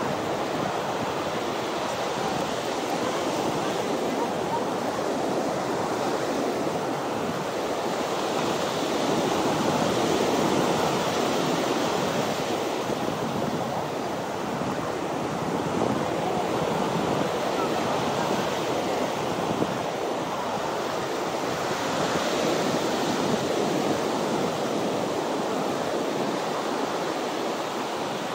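Ocean surf washing onto a beach: a steady rush of waves that swells louder about ten seconds in and again a little past twenty seconds.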